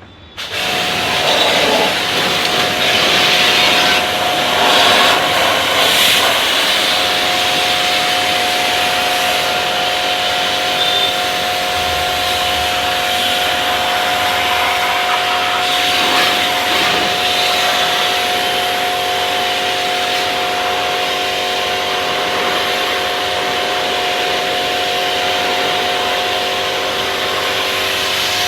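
An electric motor-driven machine is switched on right at the start and runs steadily, with a hiss and a steady whine.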